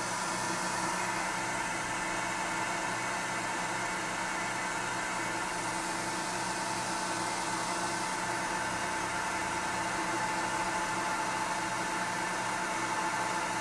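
Knee mill spindle running in back gear, a 1 inch end mill slowly plunging into a metal plate to cut a bushing relief. It is a steady machine noise with a constant whine, unchanged throughout.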